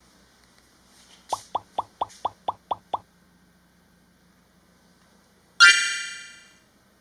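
A quick run of eight short plopping tones, each dropping in pitch, about five a second. A few seconds later comes one loud, bright chime that rings out and fades over about a second.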